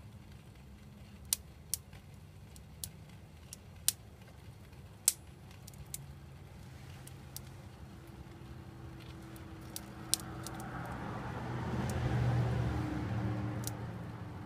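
Frozen water in a pot heated by an alcohol stove, the ice giving sharp irregular cracks and pops as it warms, about eight in all. Near the end a louder rushing swell rises and fades.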